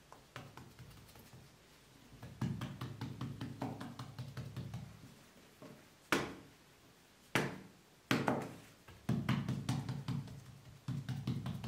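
Hands patting and pressing soft bread dough on a wooden board, in runs of quick pats, with three sharp slaps of the dough on the board about six, seven and eight seconds in.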